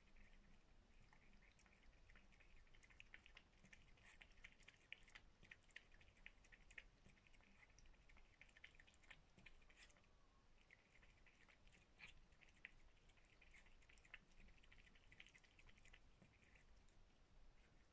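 Cat eating fish from a bowl: faint, quick, irregular wet chewing clicks, with a brief pause about ten seconds in and again near the end.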